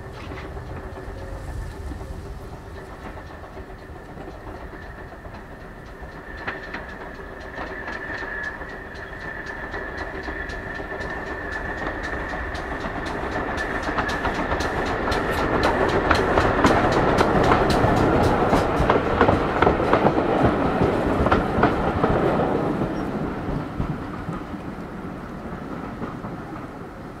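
A GWR 6400 class 0-6-0 pannier tank steam locomotive and two coaches approach, pass close by with a fast clickety-clack of wheels over the rail joints, and fade away.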